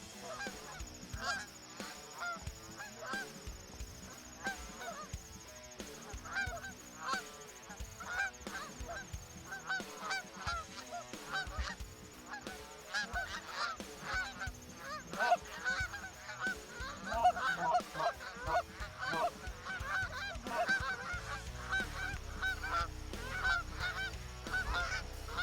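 Canada geese honking, many calls overlapping as a flock calls again and again, growing thicker and louder from about halfway through. A low rumble joins near the end.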